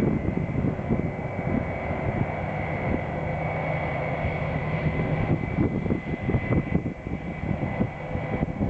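Airliner engines running steadily, with steady tones near the top of the sound, and wind buffeting the microphone.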